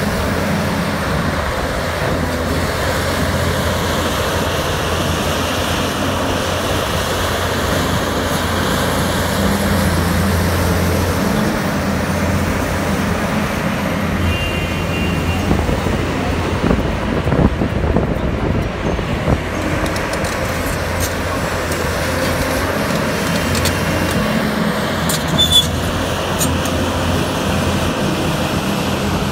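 Heavy earthmoving machinery engines running with a steady low drone, and a few short knocks and clicks in the second half.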